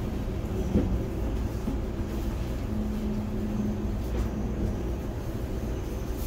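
Steady low rumble of a train in motion.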